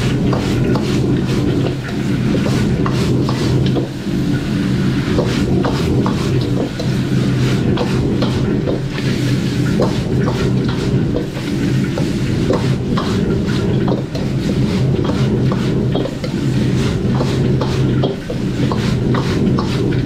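A metal spatula scraping and clanking against a wok as meat in red wine lees is stir-fried, with many short clicks and scrapes over a steady low rumble from the wok range.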